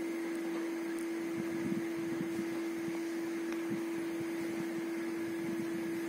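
Steady background hum with one constant mid-low tone over a faint even hiss, unchanging throughout.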